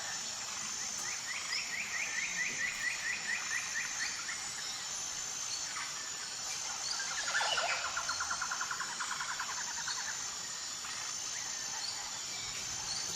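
Birds trilling over a steady high-pitched insect chorus. One trill of rapid repeated notes runs from about one to four seconds in. A lower, faster trill follows about seven seconds in and lasts some three seconds.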